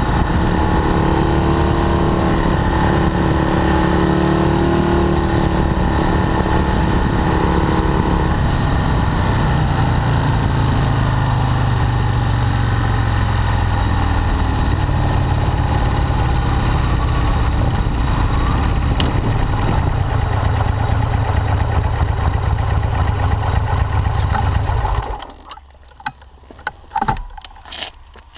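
Buell M2 Cyclone's air-cooled V-twin running under way, with road and wind noise; its note steps lower about eight seconds in. The engine sound cuts off sharply about three seconds before the end, leaving a few clicks and knocks.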